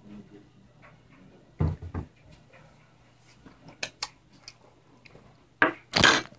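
Handling noises on a wooden table: two dull knocks about two seconds in, a few light clicks, then a loud scraping and rubbing near the end as the camera is picked up and moved.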